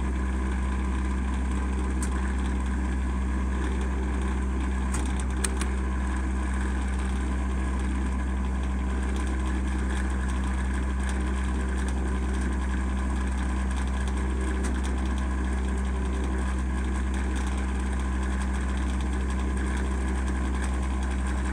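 Rapid DC electric-car charger humming steadily, a constant low electrical drone with a few faint clicks about two and five seconds in.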